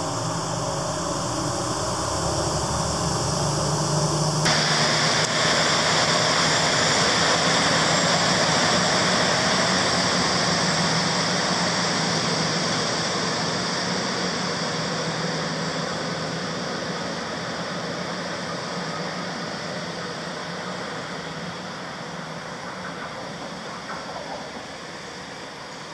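Limited express Shimanto diesel multiple unit pulling out of the station. The engines open up about four seconds in, and the loud running noise then fades steadily as the train draws away.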